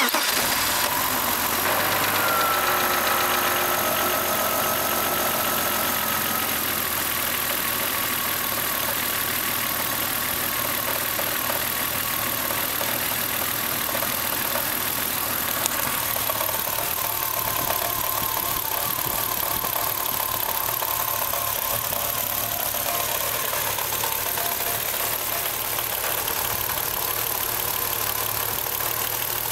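BMW E36 M3's 3.0-litre S50B30 straight-six idling low and rough, the engine shaking hard. The owner traced the fault to a replacement instrument cluster that did not pass the speed signal to the ECU, so the fuel tables went wrong.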